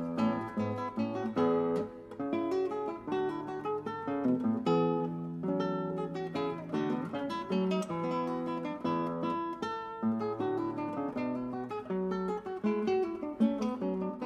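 Background music: acoustic guitar played with quick plucked and strummed notes.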